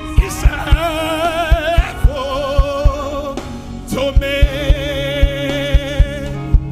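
Gospel worship music: a voice sings long held notes with vibrato over keyboard chords and a steady drum beat.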